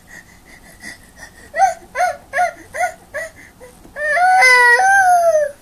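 A toddler whimpering: a run of five or six short cries, then about four seconds in a long, loud wail that falls in pitch, the sound of a small child upset or frightened.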